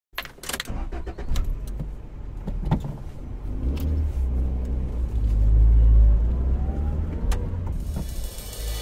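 Street traffic: cars going past with a low engine rumble that swells to its loudest a little past the middle and then eases off. Scattered sharp clicks and knocks sound over it.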